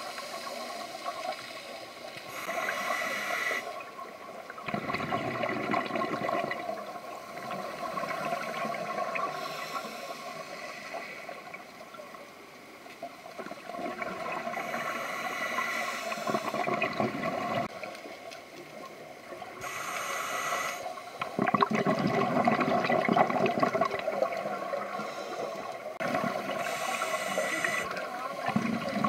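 Scuba diver breathing through a regulator underwater: a short hissing inhale, then a longer, louder rush of exhaled bubbles, repeating about four times.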